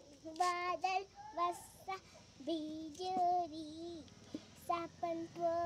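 A child's voice singing a simple melody in held notes, each changing pitch in a step, fainter than the nearby talk.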